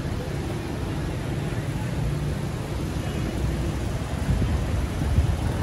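Busy street traffic: vehicle engines running steadily.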